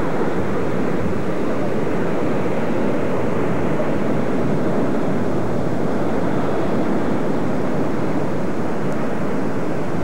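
Surf breaking on a rocky shore, heard as a loud, steady rush of noise with no separate crashes standing out.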